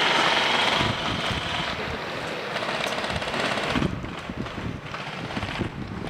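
Airsoft electric gun firing on full auto, a rapid mechanical rattle that is loudest in the first second or two and goes on more softly until about four seconds in.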